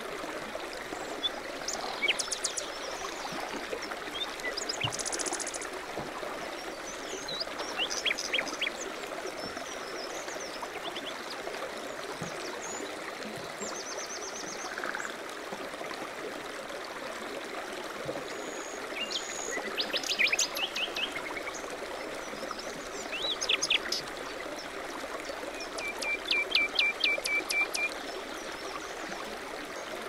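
Steady rush of stream water running over a small weir, with small songbirds chirping in short bursts every few seconds, including a quick run of chirps near the end.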